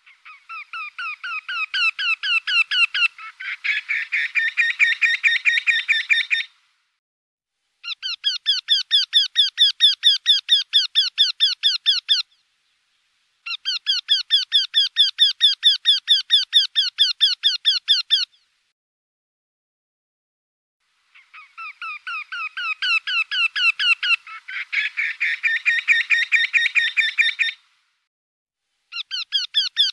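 Eurasian wryneck (Jynx torquilla) song: long series of repeated ringing notes, about four to five a second, each series lasting four to six seconds with short pauses between. The first series starts soft and grows louder, and twice a second series overlaps the one already going.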